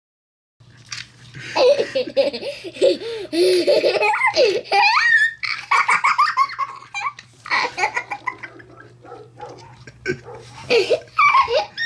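A young child laughing hard in several bouts, with high squealing rises in pitch, over a faint steady low hum.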